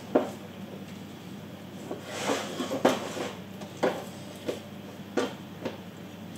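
Kitchen knife knocking on a cutting board while slicing a chicken breast, about six sharp knocks at uneven intervals, with a brief rustling scrape about two seconds in.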